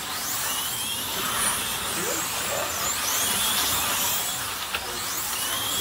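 Slot cars racing on a large banked track, their small electric motors whining in rising and falling sweeps as they pass, about every second and a half, over a steady hiss.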